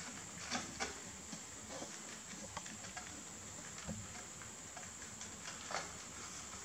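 Two rabbits chewing fresh sweet basil leaves: irregular small crisp clicks of munching, a few louder than the rest, over a steady high hiss.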